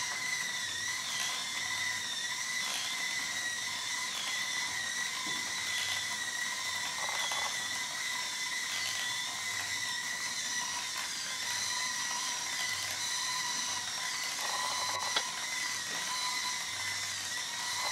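Small electric motor and plastic gear train of a 3D-printed Klann-linkage walking robot running with a steady high whine and light gear clicking; the whine dips briefly in pitch about every second and a half.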